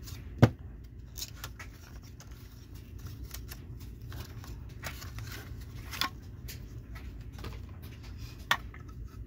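Cardboard box and clear plastic display case of a diecast model truck being handled and opened: card rustling and scraping, with sharp plastic clicks, the loudest about half a second in and others near six and eight and a half seconds.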